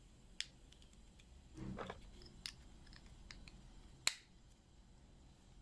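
Faint handling of a small plastic memory-stick enclosure: a short scrape and several light plastic clicks, the sharpest snap about four seconds in, as the circuit board is fitted back and the case is closed.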